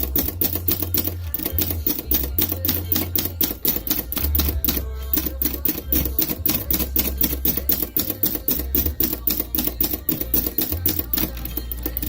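Typewriter keys striking in a fast, steady run of sharp clicks, about five or six a second, over background music with a low bass.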